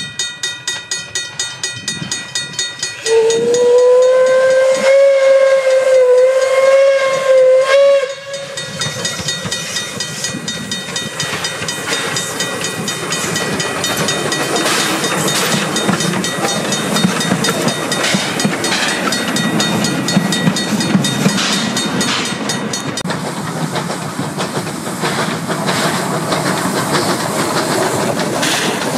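Steam locomotives, the 1878 D16 leading a second engine, working along the line. Quick exhaust chuffs come about four a second, then a steam whistle blows one long steady note for about five seconds. After that, hissing steam and exhaust beats mix with the clatter of wheels on the rails as the engines pass.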